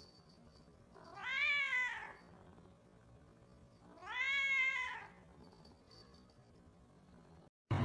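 A long-haired cat meowing twice, about three seconds apart. Each meow is drawn out, rising and then falling in pitch.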